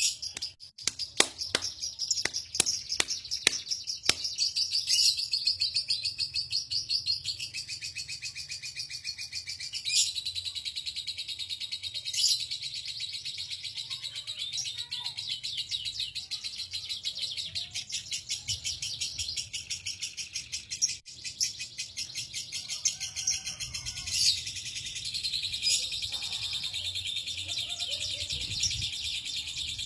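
Lovebird 'ngekek': one long, unbroken, rapid high-pitched chatter that goes on without a pause. A few sharp clicks sound in the first four seconds.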